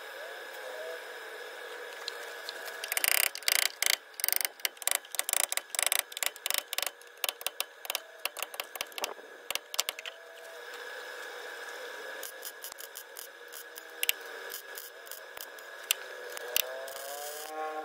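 Miller MIG welder laying tacks on sheet-metal rocker panels with argon shielding gas: a second of steady arc crackle, then a run of short crackling bursts. It goes quieter after that, with a few single clicks.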